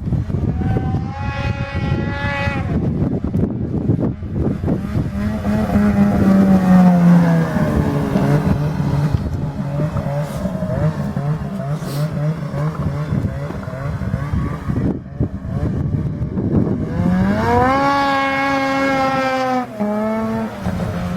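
Ski-Doo XM 800 E-Tec snowmobile's two-stroke engine running through an HPS aftermarket silencer. It is revved briefly about a second in, falls in pitch around six to eight seconds in and runs steadily lower, then revs up again and holds before dropping near the end.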